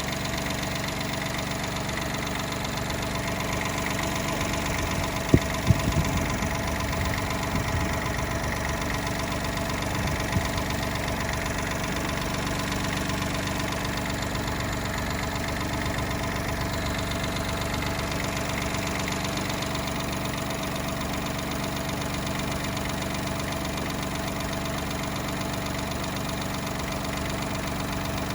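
Daihatsu Mira Custom (L275S) three-cylinder engine idling steadily, with an abnormal noise whose cause is unknown to the owner. A few sharp knocks sound about five to six seconds in and once more around ten seconds.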